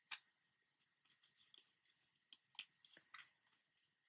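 Faint crinkles and clicks of a sheet of origami paper handled and creased by hand: a few short crackles scattered through near silence, the clearest just after the start.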